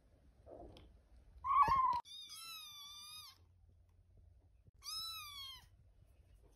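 Young tuxedo kitten meowing: a loud short meow about one and a half seconds in, then two longer, high, whiny meows that waver up and down in pitch.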